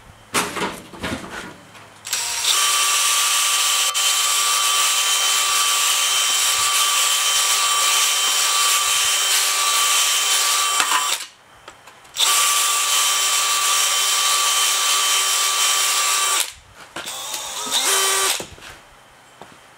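Cordless drill spinning a lapping mandrel inside a cast-iron tappet bore of a Willys L134 engine block, lapping the bore to size so slightly oversize tappets will fit. A few clicks and knocks come first. Then the drill runs with a steady whine for about nine seconds, stops for a second, runs about four seconds more, and gives a short burst near the end.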